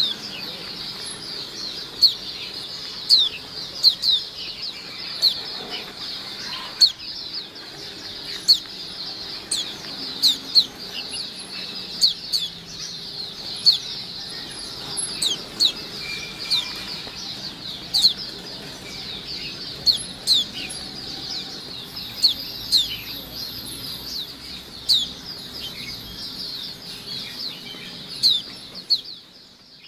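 A caged flock of white-eyes (pleci) chattering continuously. A dense stream of high, quick, falling chirps runs throughout, with louder, sharper chirps standing out every second or so.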